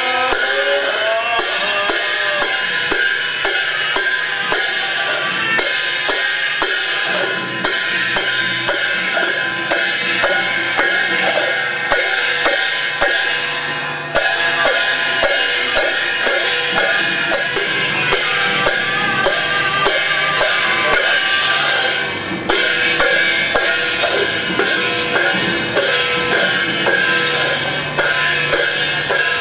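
Music with drums and cymbals struck to a steady beat, under a held melody line.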